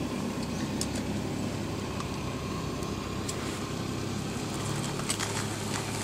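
Steady low hum of a running engine in the background, with a few faint light clicks.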